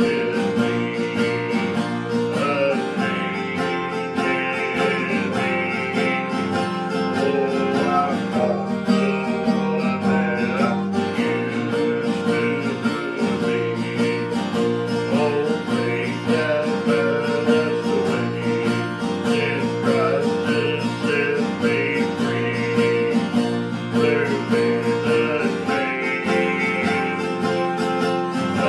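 Acoustic guitar strummed in a steady rhythm, playing a gospel song.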